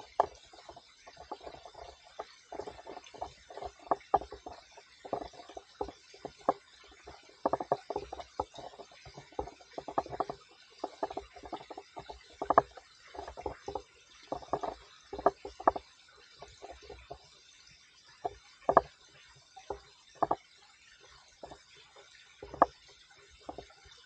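Footsteps crunching and scuffing on a steep dirt and leaf-litter bush track: irregular, uneven steps with some louder scrapes.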